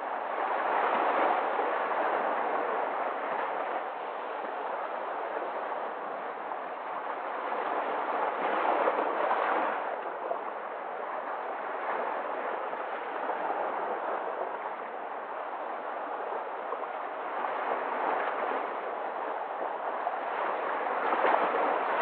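Sea waves breaking and washing over shoreline rocks: a continuous rush of surf that swells several times as each wave comes in and falls back between them.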